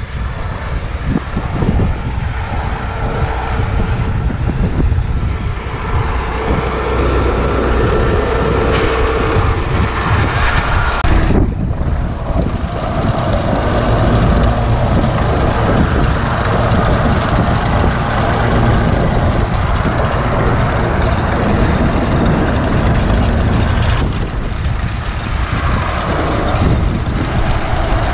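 A 1928 Holt Model 36 pull-type combine running, its four-cylinder liquid-cooled Wisconsin engine and threshing machinery together making a loud, steady mechanical noise.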